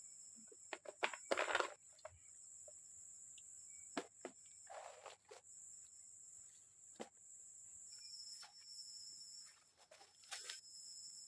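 Forest insects droning steadily on one high note, with scattered knocks and clicks and three louder brief rustles from someone moving and handling things in the undergrowth.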